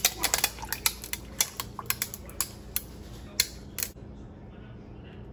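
A quick, irregular run of sharp clicks and clinks of hard kitchen objects, about fifteen in four seconds, stopping about four seconds in.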